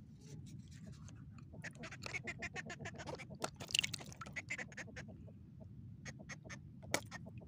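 A hooked sea catfish, held in the hand while being unhooked, croaking in runs of rapid clicks, with a louder burst just before four seconds and a single sharp click near the end.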